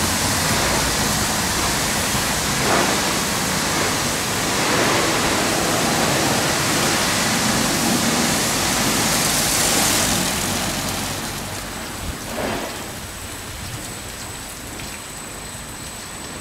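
Ceccato Hydrus Tech rollover car wash at work on a van: spinning wash brushes and water give a steady rushing, like heavy rain. About ten seconds in it drops to a quieter hiss with a faint, steady high whine.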